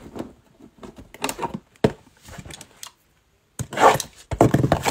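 Cardboard trading-card blaster boxes being picked up, shifted and set down on a table: light scattered knocks and scrapes, then louder close-up bumps and rustling near the end.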